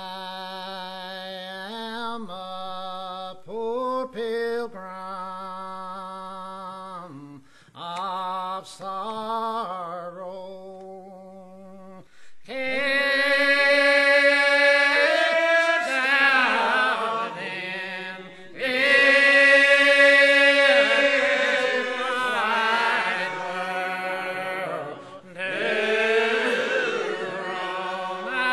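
A Regular Baptist congregation singing a hymn in the old lined-out style. A single leader's voice chants the line on slow, held notes, then about twelve seconds in the congregation comes in, louder, drawing the line out slowly together.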